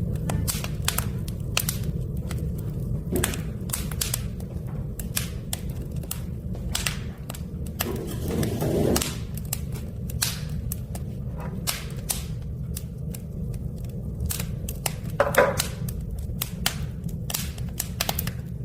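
Oak and pine wood burning in a furnace, crackling with many irregular sharp pops over a steady low rumble.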